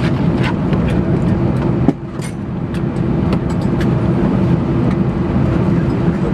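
Airbus A319 cabin noise while taxiing to the gate: the jet engines idling with a steady low hum and a held drone tone, dipping briefly about two seconds in. Scattered short clicks sound in the cabin over it.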